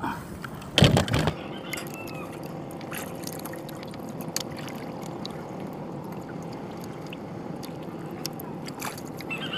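Water lapping and trickling against a small outrigger boat's hull, with a short loud thump about a second in.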